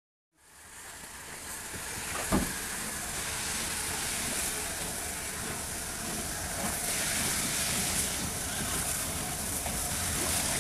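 Steam locomotive hauling a train of coaches along the line: a steady hiss of steam and running noise that fades in from silence in the first second. There is a single sharp knock about two seconds in.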